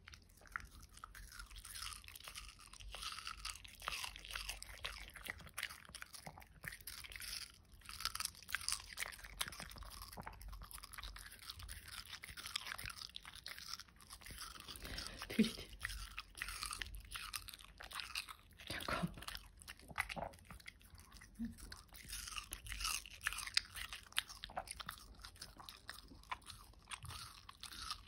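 Shih Tzu biting and chewing a thin slice of watermelon held in a hand: many small, crisp, wet crunches in quick succession, with short pauses between bites.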